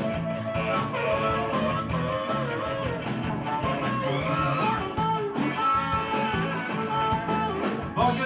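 Live band playing an instrumental break: harmonica played through a microphone over electric bass, guitars, keyboards and drums keeping a steady beat, with bending notes about halfway through.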